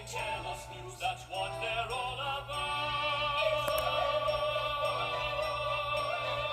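Music with operatic singing. From about two and a half seconds in, the voice holds one long note with wide vibrato.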